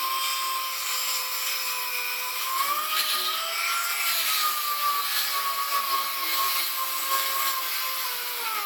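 Small high-speed power grinder running continuously with a steady whine over a gritty hiss, its pitch rising a little about three seconds in and then easing back as it bears on the work: rust being ground off a kei truck's sheet-metal body.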